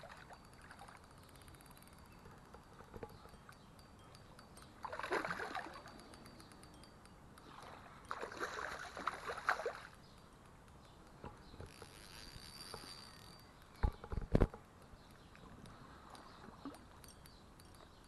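Hooked wild brown trout splashing at the water's surface in two bursts a few seconds apart as it is played to the net. Two sharp knocks come about three-quarters of the way through.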